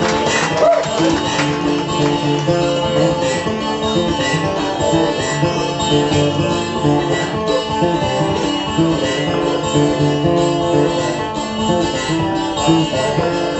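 Acoustic guitar playing a song's instrumental intro live, a steady rhythm of strummed chords.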